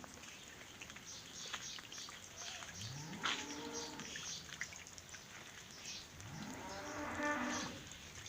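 A cow mooing twice, about three seconds in and again near the end, each call sliding up in pitch and then held.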